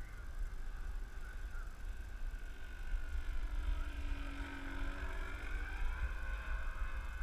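Radio-controlled profile Edge aerobatic model plane's motor and propeller buzzing in flight, the pitch dipping and rising again midway as the plane passes and changes throttle. Wind rumbles on the microphone underneath.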